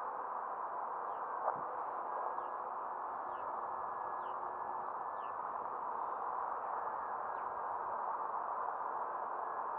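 Electric motor and propeller of an FMS P-40 radio-controlled foam warbird running steadily in flight. It is a dense, even rushing hiss with a faint steady whine, and a few faint short high chirps come over it during the first half.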